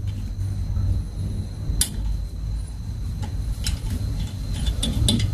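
A 12 mm spanner and steel bolt clicking and clinking now and then as the bolt is worked into a rear brake drum to push it off the hub, over a steady low hum.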